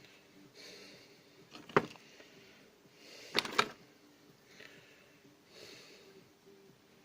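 Sharp clicks of small motor parts being handled on a workbench: one loud click about two seconds in and a quick double click about halfway through. Soft nasal breaths come in between.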